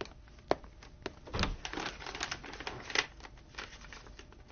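Large paper sheets rustling and crinkling as they are handled on a table, with scattered light clicks and taps.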